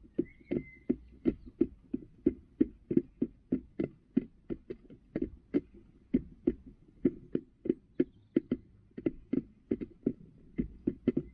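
A hen pecking at the plastic pan of a poultry feeder: quick, irregular knocks, about three a second.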